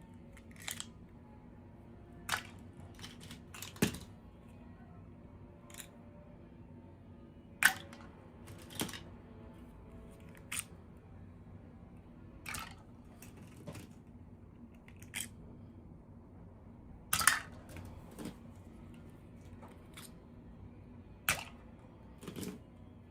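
Scattered sharp clicks and taps of small plastic pieces, irregular and a second or two apart, from the handling of toy packaging and miniature dolls during unboxing. The two loudest come about 8 and 17 seconds in, over a faint steady hum.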